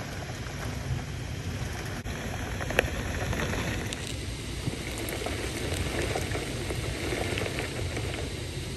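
Heavy thunderstorm rain pouring steadily, with a low rumble underneath and one sharp click about three seconds in.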